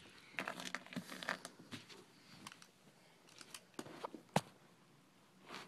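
Scattered light clicks and taps of tools and parts being handled at the bottom of a washing machine, with a sharper click about four and a half seconds in.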